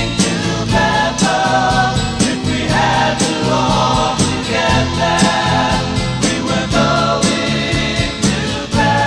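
Music from a late-1960s rock recording: a band playing over a steady drum beat, with group voices singing.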